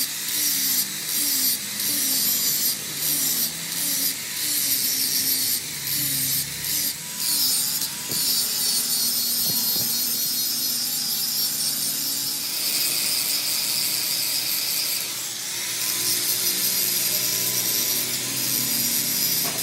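Metalwork on a truck's steel: a harsh, high hiss that comes in short strokes with brief gaps for the first several seconds, then runs steadily.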